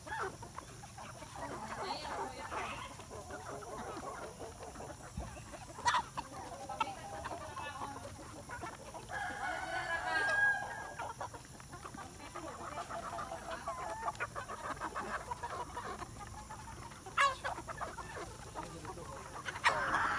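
A flock of free-range chickens clucking steadily as they feed together at troughs, with a louder, longer call from one bird about halfway through and a few sharp clicks.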